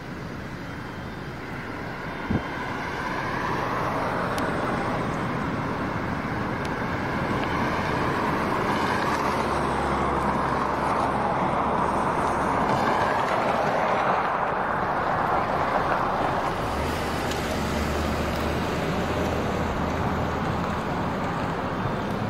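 Road traffic going past: a steady rush of tyre and engine noise that builds a few seconds in, is loudest through the middle and eases off near the end, with a low engine hum now and then. There is a single knock about two seconds in.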